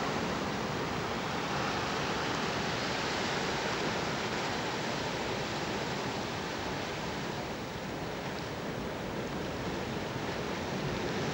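Steady rushing noise of wind and choppy sea water, easing slightly for a moment about two-thirds of the way through.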